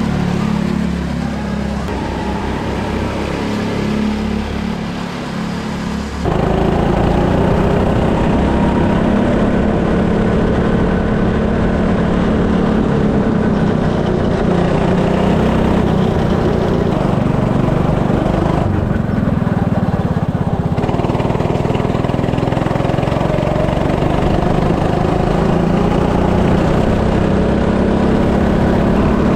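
Go-kart engine running as a kart drives the track, heard first from trackside and then, after a sudden jump in loudness about six seconds in, from on board; its note rises and falls with the throttle.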